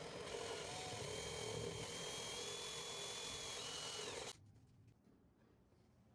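Small electric power tool running at high speed with a steady high whine for about four seconds, then cut off suddenly; a few faint knocks follow.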